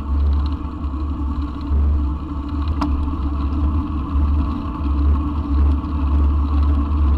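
Wind buffeting the action camera's microphone on a moving mountain bike, over the steady rumble of knobby tyres rolling on a rough country road; a single short click about three seconds in.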